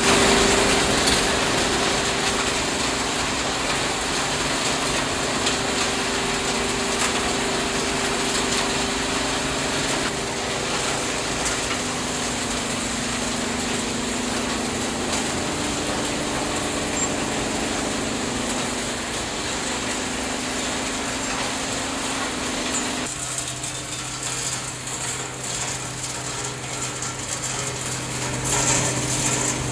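Machinery of a scrap refrigerator recycling and sorting line running continuously: dense mechanical noise with scattered rattling clicks over a few steady hums. About 23 seconds in the sound changes abruptly to a lower steady hum.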